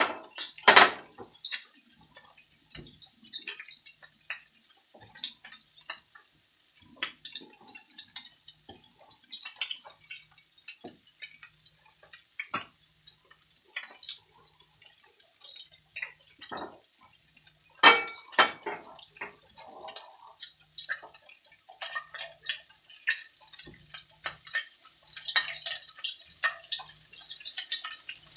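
Meatballs frying in hot oil in a cast-iron skillet: steady sizzling with constant small pops and crackles. Two louder sharp knocks stand out, about a second in and again about two-thirds of the way through.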